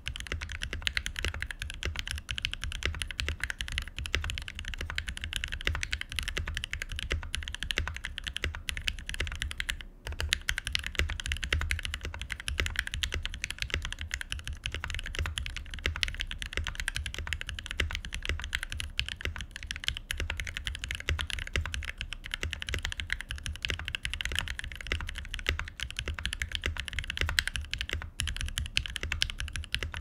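Continuous typing on a 60% mechanical keyboard: a frosted acrylic Tofu 60 case with an aluminium plate and case foam, FFF switches lubed with 205g0 and fitted with Durock films, and Durock v1 stabilisers. A steady stream of keystroke clacks, with a brief pause about a third of the way in.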